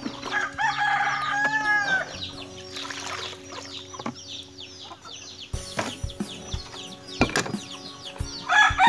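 Domestic chickens clucking and calling, with a burst of loud calls in the first two seconds and again near the end. A few sharp knocks in the second half.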